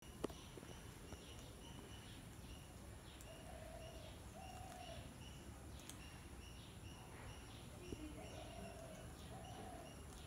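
Faint garden birdsong: a short high chirp repeating about twice a second, joined twice by a low two-note coo.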